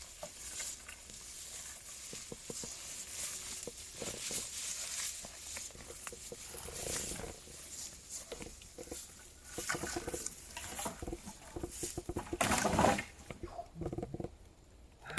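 People eating a meal: scattered chewing, scraping and clicking noises, with one louder noise about twelve seconds in.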